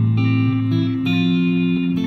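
Electric guitar playing slow, sustained notes that ring on and overlap, a few new notes starting across the two seconds, amplified through a sound system.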